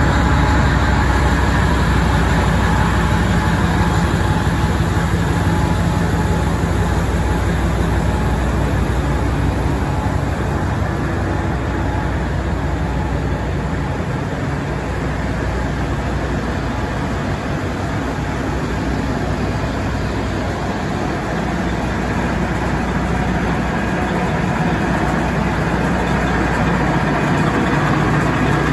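A diesel locomotive passes slowly with its engine running, followed by the steady rolling rumble of a tank car on the rails. Near the end the louder engine hum of the diesel generator on the wash train's flat car, which powers the high-pressure rail spray, comes up.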